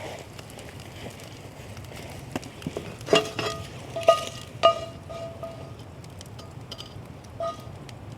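Metal clinks, a utensil striking cookware: four sharp strikes a little past the middle, each ringing briefly, and a fainter one near the end, over a low steady background.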